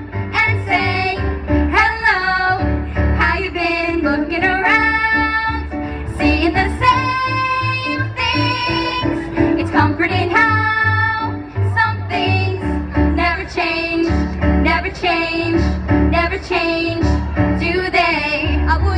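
Three young women singing a show tune together into microphones, amplified, over an instrumental accompaniment with a bass line.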